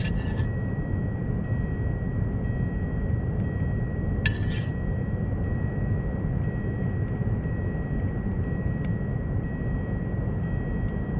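A steady low rumble with a faint thin high whine over it. A spoon scrapes against a cast-iron skillet once, briefly, about four seconds in, while clam filling is scooped onto bread.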